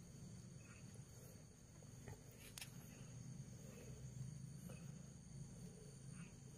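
Faint, steady high-pitched chorus of night insects such as crickets, with a single sharp click about two and a half seconds in.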